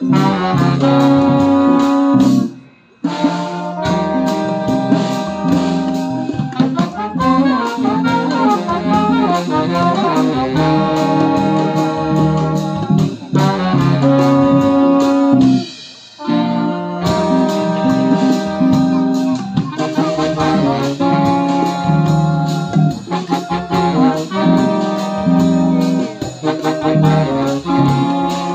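Small jazz band playing, with saxophone and trumpet in harmony. The playing breaks off briefly about three seconds in and again around sixteen seconds.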